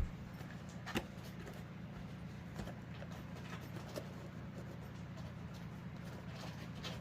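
Handling knocks and light clicks as plastic smoke alarms are picked up and set down: a sharp knock at the start and another about a second in, then a few faint clicks. A steady low hum runs underneath.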